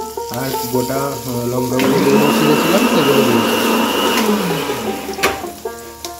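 Green chillies and cumin seeds sizzling in hot oil in a non-stick frying pan, stirred with a wooden spatula. About two seconds in, a louder steady whirring hiss with a high whine starts and runs for a couple of seconds. A single sharp click comes near the end.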